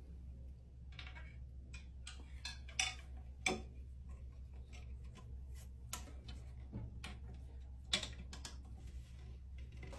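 Irregular light clicks and taps of a thin metal wire and a plastic toilet seat being handled, the wire knocking against the seat and bowl as it is bent into place, over a steady low hum.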